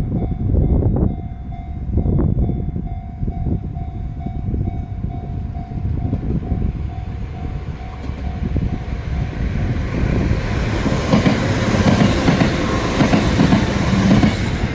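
An electric train approaching and passing on the line by a level crossing, its running and rail noise growing louder from about two-thirds of the way in. A steady tone sounds over a low rumble through the first half.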